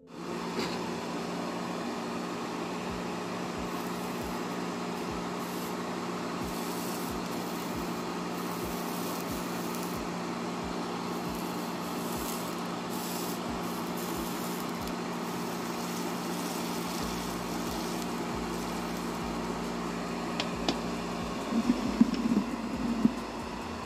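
A 12-volt CPU fan in a homemade solder smoke extractor running steadily: a constant hum with a rush of air. About 21 seconds in, a few brief, louder knocks.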